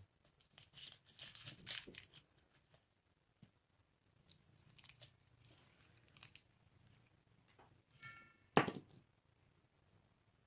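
Crinkling and tearing of a mint candy's plastic wrapper, in three irregular bursts with a sharp, louder crackle about eight and a half seconds in.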